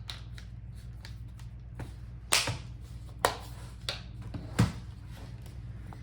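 Plastic front bezel of an HP 15-dy laptop screen being pressed back on, its clips snapping into place with four sharp clicks and some lighter ticks, over a steady low hum.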